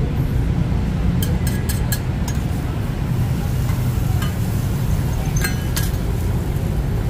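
Steady rumble of street traffic, with a metal spatula clinking against a flat roti pan: a quick run of clinks about a second in, then a few single clinks later.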